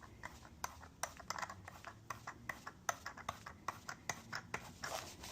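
1/4-20 hand tap being turned to cut threads in a 3D-printed PETG plastic block, giving a run of small, irregular clicks and creaks several times a second as the tap works into the oiled plastic.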